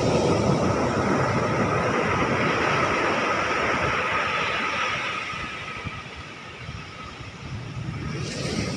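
Ocean surf washing onto the beach, with wind buffeting the microphone. The wash is loudest over the first few seconds, eases off about six seconds in, then builds again as the next wave comes in.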